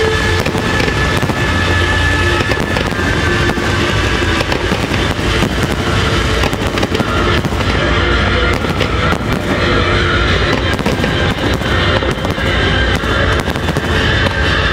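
Fireworks display: a rapid, continuous barrage of aerial shell bursts and crackling, dozens of bangs with no break, with music playing underneath.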